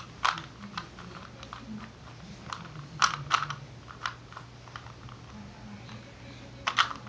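Irregular plastic clicks and clacks of a Rubik's cube's layers being turned by hand, scattered single turns with a louder cluster about three seconds in and another near the end.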